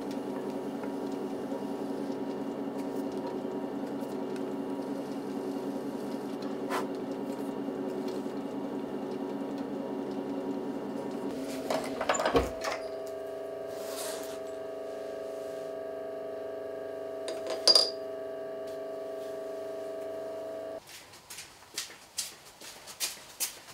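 Electric potter's wheel motor humming steadily. Its tones shift to a different set after a few sharp knocks about halfway through, with another loud knock later. The hum cuts off abruptly near the end, leaving scattered light taps of tools on clay and wood.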